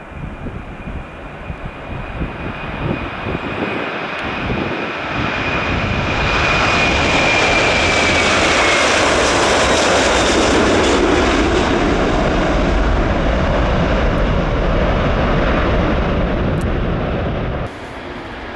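Airliner's engines growing louder as it passes close, with a high whine that sinks in pitch about eight or nine seconds in. The sound drops suddenly near the end.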